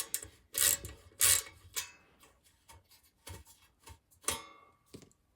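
Socket ratchet clicking in a few short strokes, then scattered light clicks and one metallic clink with a short ring about four seconds in.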